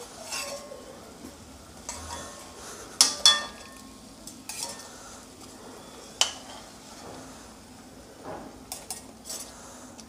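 Dough puffs deep-frying in hot oil with a faint steady sizzle. A metal ladle and wire spider strainer clink sharply against the pan a few times, loudest about three and six seconds in, as the fried puffs are scooped out.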